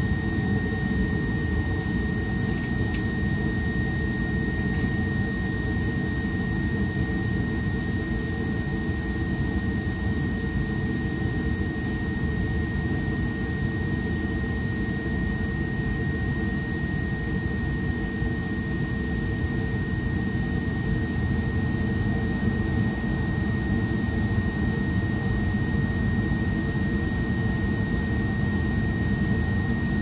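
Furnace running steadily through its heat cycle, a constant low roar with a steady high whine above it, heard muffled through a closed louvered closet door.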